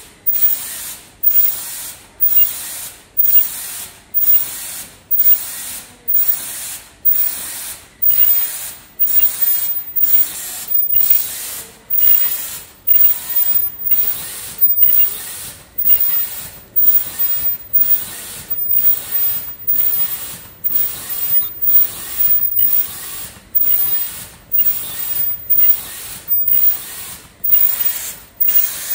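KN95 mask-making machine running: a sharp hiss of released air about once a second, in an even rhythm, over mechanical clatter.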